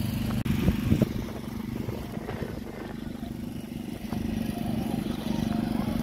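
An engine running steadily with a constant low hum, and a few knocks and clatter about half a second in.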